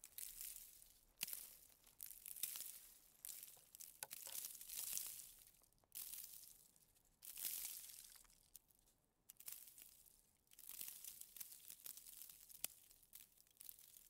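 Faint crunching and hissing of snow, coming in irregular crackly swells about a second apart.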